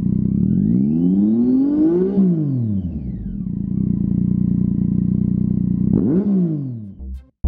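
Triumph Tiger 800's inline three-cylinder engine through a Lextek YP4 aftermarket silencer, idling, then revved once, rising and falling back to idle over about three seconds, and given a short quick blip about six seconds in.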